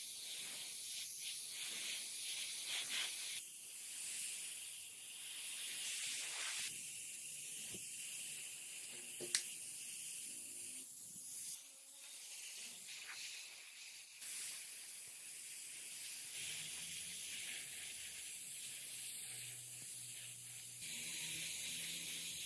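Airbrush spraying paint: a steady high hiss that swells and fades several times, with one sharp click about nine seconds in.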